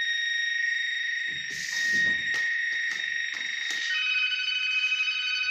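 Zfish Helios electronic bite alarm sounding a steady, high electronic tone, with a few clicks of handling. About four seconds in, the tone switches to a different, lower one.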